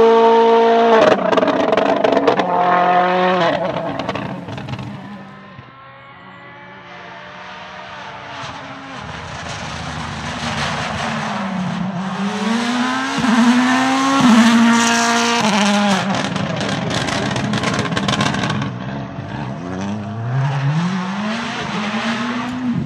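Toyota rally car's turbocharged four-cylinder engine at full throttle: revving high, then crackling through quick gearshifts as it passes and fades away about five seconds in. Another run then builds up, the revs climbing and dropping sharply through a series of fast shifts.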